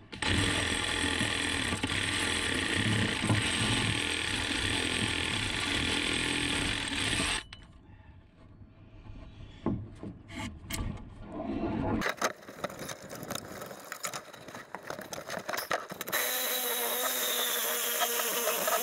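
Reciprocating saw cutting through a wooden utility-pole cross arm: it runs steadily for about seven seconds, then stops abruptly. Knocks and scraping from the cut piece being handled follow, and near the end another steady mechanical sound with a faint falling whine starts.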